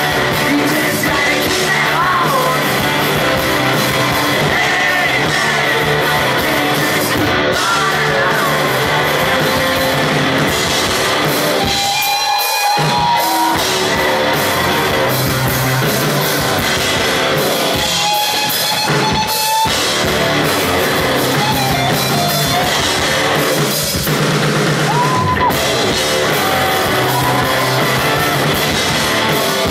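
Rock band playing loud and live in a large hall: electric guitars and a drum kit, running on without pause.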